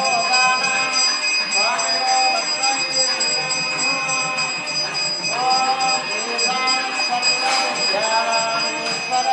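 Brass temple bell rung without pause through the puja, a steady high ringing, over a melody whose notes slide upward every few seconds.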